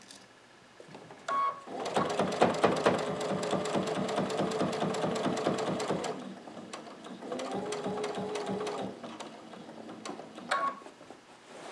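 Electric sewing machine stitching a quilt's folded binding, running for about four seconds, then a shorter second run after a brief pause. A short click with a brief tone comes about a second in and again near the end, as the machine stops at the corner.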